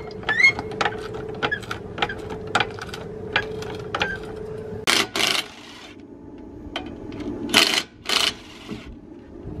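Hydraulic floor jack being pumped, a short click or creak on each stroke a little over twice a second for about four seconds. Then a cordless impact wrench fires in short bursts, twice about five seconds in and twice more near eight seconds, loosening the wheel's lug nuts.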